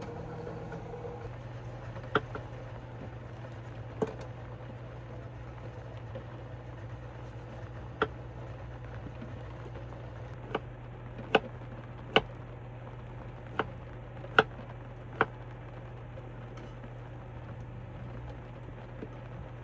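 Scattered heavy raindrops tapping on the roof of a camper van, about nine sharp single taps at irregular intervals, heard from inside over a steady low hum.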